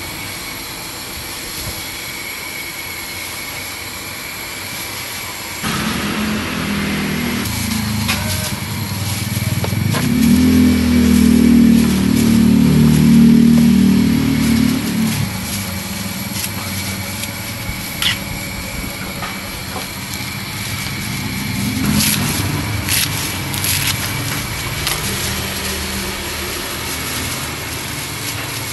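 Street traffic with a vehicle engine passing close by: it builds from about a quarter of the way in, is loudest around the middle, then fades, and a second, weaker one passes later. Light plastic clicks and rustles come from gloved hands packing food into a plastic takeaway box.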